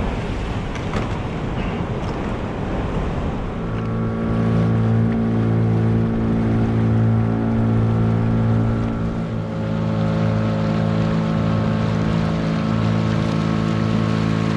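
A rush of wind and water noise, then about four seconds in a steady engine drone starts and keeps running, its pitch shifting slightly about two-thirds of the way through.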